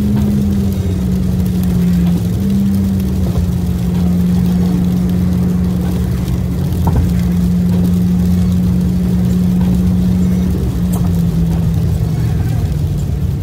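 Car engine and wet-road tyre noise heard from inside the cabin at highway speed in heavy rain: a steady low drone whose pitch steps slightly a couple of times, over an even hiss.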